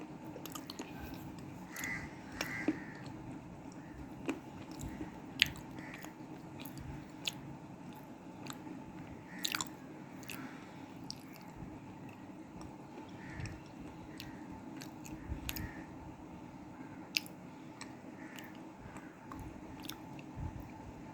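A person bites and chews pieces of black cement slate, giving sharp, irregular crunches over a steady background hum. The loudest snap comes about five seconds in.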